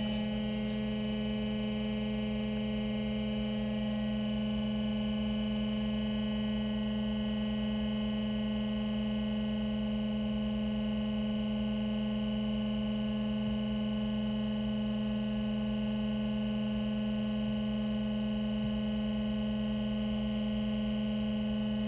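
Metal-cutting bandsaw running steadily, a constant even hum with no change in pitch or level.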